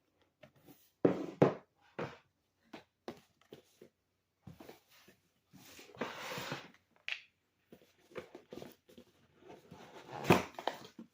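Unboxing handling of a product box and its contents: scattered light knocks and taps, a longer rustling slide about six seconds in, and a louder knock near the end.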